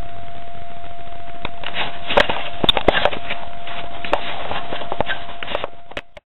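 Steady outdoor hiss with a faint steady tone, and rustling, crackling handling noise from about two seconds in as the camera is moved. The sound cuts off suddenly near the end.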